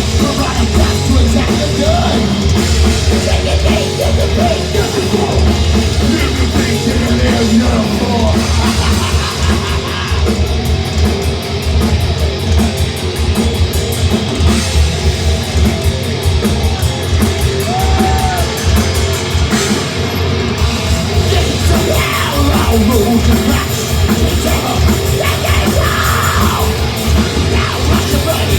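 Heavy metal band playing live, loud and unbroken: distorted electric guitars over a drum kit.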